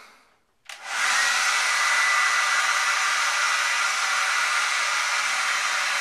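Hand-held electric hair dryer switched on just under a second in and running steadily: a loud rush of blown air with a faint thin whine on top.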